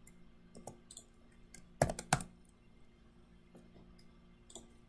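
Keystrokes on a computer keyboard: a few scattered light taps, with two louder key strikes about two seconds in.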